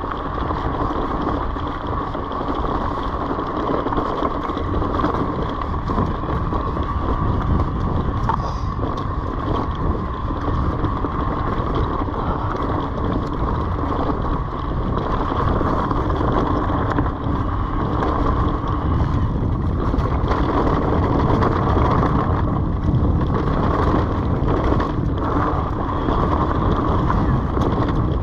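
Orbea Wild FS electric mountain bike riding along a leaf-covered dirt trail: tyres rolling over dirt and dry leaves with a steady hum over a low rumble, and wind on the microphone.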